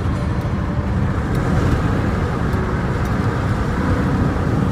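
Steady road and engine noise of a moving car, a low even rumble with no distinct events.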